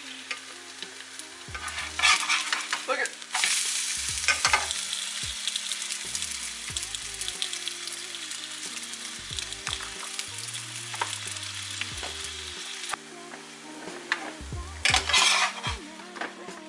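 Kimchi pancake batter sizzling in hot oil in a frying pan, the sizzle louder for most of the middle and easing near the end, with a few louder scraping strokes now and then.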